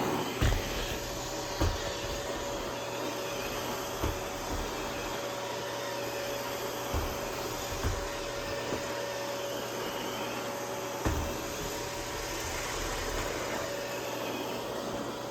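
Roomba robot vacuum running in spot-clean mode: a steady suction hiss with a constant whine, broken by a few low thumps.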